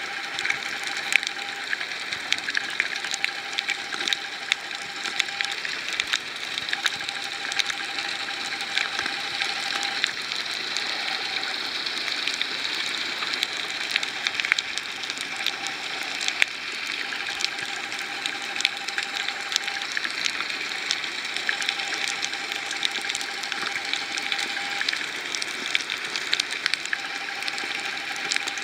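Underwater coral-reef ambience picked up by a waterproof compact camera: a steady hiss with a dense crackle of clicks, typical of snapping shrimp. A faint steady tone comes and goes every few seconds.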